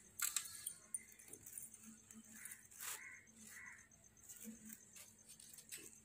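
Faint clicks and rustling of plastic cord handled by hand as it is woven into a charpai (rope bed) frame, with sharper clicks about a quarter second in and again near three seconds.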